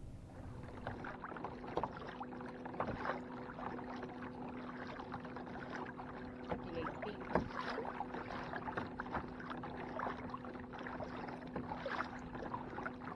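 Water splashing and knocking lightly against a kayak's hull as it moves along, with a steady low hum underneath.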